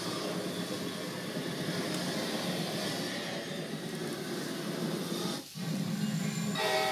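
Recorded train sound played alongside a model train: a steady locomotive engine drone with hiss, which cuts out for a moment about five and a half seconds in, then a locomotive horn sounding near the end.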